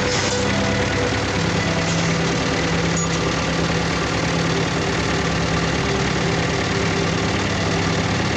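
Engine idling with a steady, rapid pulsing beat, running rough with a misfire that the owner puts down to a faulty injector in the fuel system.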